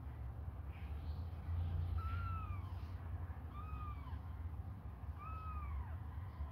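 Very young kittens mewing: a few faint cries about a second in, then three clear thin mews, each rising then falling, about a second and a half apart. These are the cries of hungry kittens trying to nurse.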